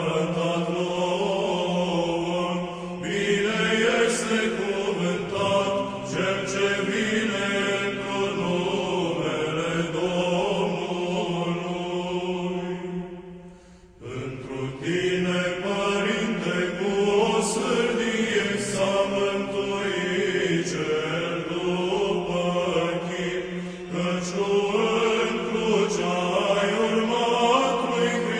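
Eastern Orthodox liturgical chant of a prayer canon: a voice chanting over a steady held drone note, with a short pause about halfway through.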